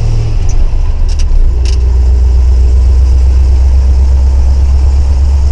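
1979 Ford F-150 pickup's engine idling. Its speed drops in two steps within the first second and a half, then holds steady at a lower idle, with a few light clicks along the way.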